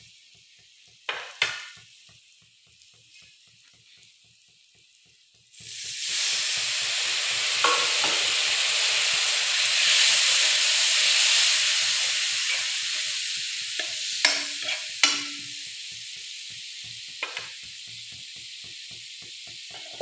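Onion and spice masala frying in oil in a steel kadai, stirred with a spatula. A loud sizzle starts suddenly about five seconds in and slowly dies down. There are sharp knocks of the spatula on the metal pan, two of them near the middle ringing briefly.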